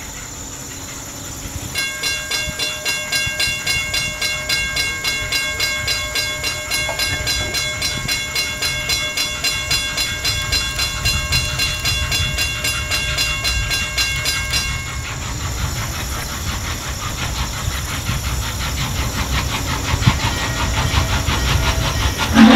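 Norfolk and Western 611, a 4-8-4 steam locomotive, working toward the listener with a low rumble and steam hiss that grows louder near the end. For most of the first two-thirds a ringing tone pulses about three times a second, then stops.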